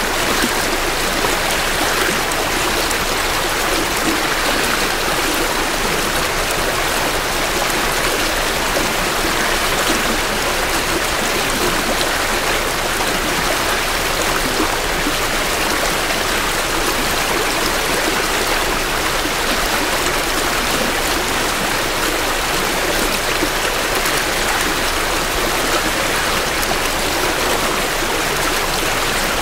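Small spring creek flowing steadily over rocks, an even rushing and babbling of water heard close up at the bank.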